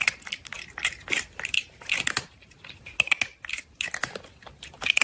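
Crunchy chewing: irregular crisp bites and crunches, several a second, of something crunchy being eaten.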